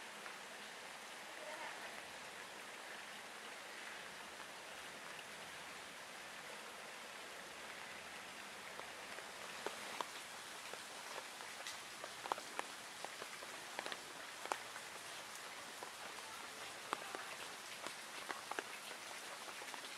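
Steady rain falling on leaves and into a puddle, an even hiss. From about halfway, single drops land close by as sharp ticks over the hiss.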